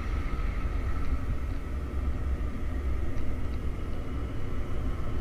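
Motorcycle riding at speed: a steady, heavy low rumble of wind on the action camera's microphone, with a faint steady engine whine above it.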